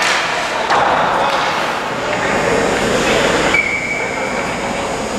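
Many overlapping voices of a crowd chattering and calling out, echoing in an ice rink, with one high held tone, a shout or a whistle, about three and a half seconds in.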